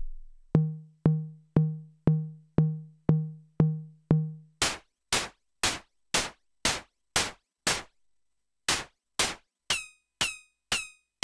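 Noise Engineering Tymp Legio Eurorack drum module triggered about twice a second, its voice changing as its mode and variation switches are flipped. First come short pitched drum hits with a low tone, then about four seconds in, noisy hissing hits. After a short break, noisy hits with a metallic ring follow near the end.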